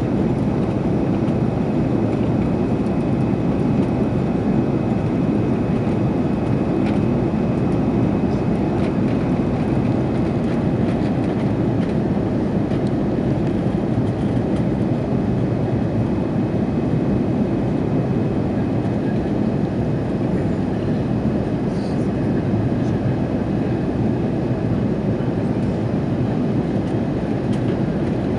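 Steady cabin noise inside an Airbus A330-300 airliner in flight: an even low rush of engines and airflow with a faint steady high whine.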